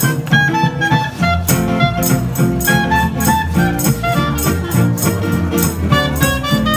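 A small hot-jazz trio plays live: a clarinet melody over a strummed acoustic guitar and a plucked upright bass, with an even beat on washboard and cymbal.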